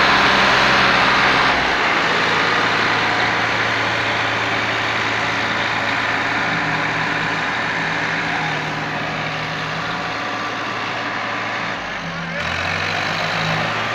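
Two diesel tractor engines running hard under load as the tractors pull against each other. The engine note steps down about two seconds in and changes again near the end.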